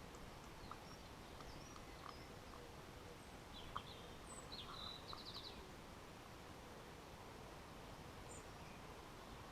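Faint garden bird chirps and a short rapid twitter about three to five seconds in, over a steady low hiss of outdoor background noise, with a few soft ticks scattered through.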